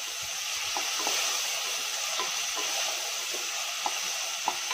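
Chopped onion and tomato sizzling in hot oil in an aluminium pressure cooker as they are stirred with a wooden spatula: a steady frying hiss with scattered small ticks.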